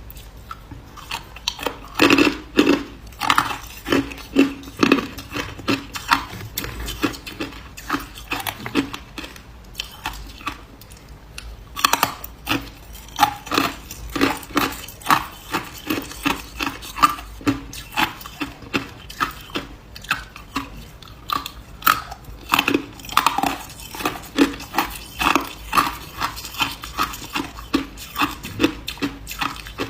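Hard ice being bitten and chewed up close: a dense run of sharp cracks and crunches, sparser for a few seconds before the middle and then picking up again.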